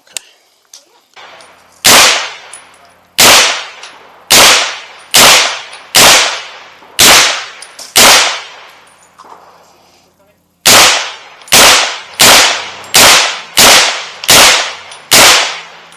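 Firearm gunshots at a shooting range: a string of seven shots about a second apart, a pause of a couple of seconds, then seven more fired a little faster, each crack trailing off briefly.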